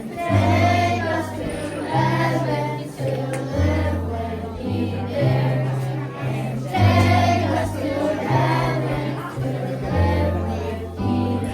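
A group singing a Christmas carol over a steady accompaniment, with long sustained bass notes that change about every second or two.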